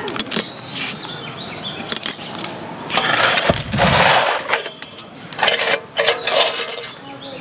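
Scales of a climbing perch being scraped against the iron blade of a boti: irregular rasping scrapes with sharp clicks, the longest stroke a little after three seconds in and another run of scrapes near the end.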